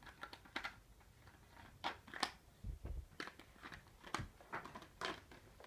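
Scattered light clicks and knocks of a rotary telephone's handset being handled, with a soft low thump about three seconds in.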